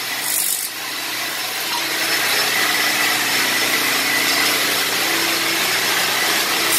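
Large HEPA dust-extractor vacuums running with a loud, steady rushing noise and a constant high whine. There is a short burst of higher hiss near the start.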